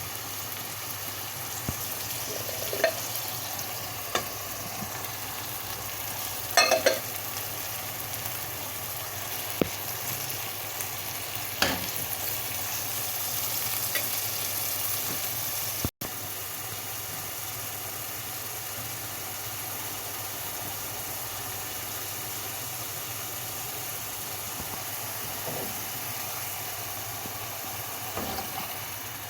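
Food sizzling steadily in hot oil in a pan, with a few short clicks of a utensil against the pan as it is stirred in the first half. The sound breaks off abruptly for an instant about halfway through.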